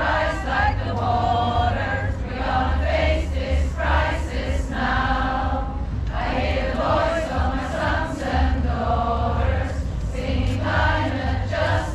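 A group of voices singing together in unison: a chant-like protest song sung in short, repeated phrases.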